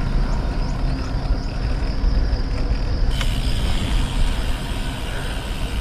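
Steady low rumble of wind buffeting the microphone of a bicycle-mounted action camera during a slow uphill ride. A higher hiss comes in suddenly about three seconds in.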